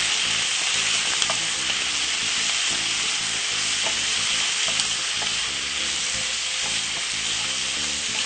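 Pasta with curly kale and carrot sizzling steadily in a hot frying pan as it is stir-fried and stirred, with a few light clicks scattered through the sizzle.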